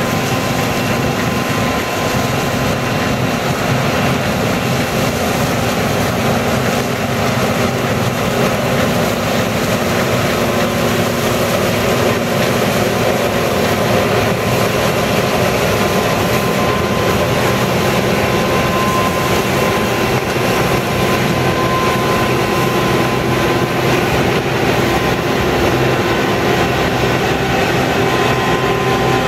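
John Deere combine harvesting swathed canola: its diesel engine and threshing machinery run steadily under load, a dense mechanical rumble with a thin steady whine.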